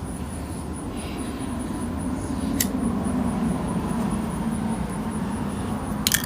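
A distant engine's low rumble that swells through the middle and fades again, with two short sharp clicks, one about two and a half seconds in and one near the end.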